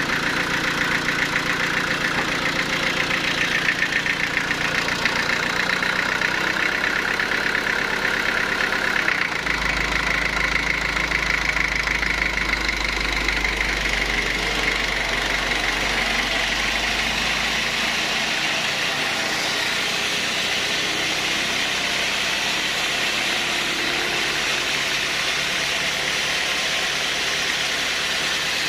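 Sawmill machinery running steadily: an engine-driven log saw with a fast fluttering whir. A deep low hum joins about nine seconds in and drops away around eighteen seconds.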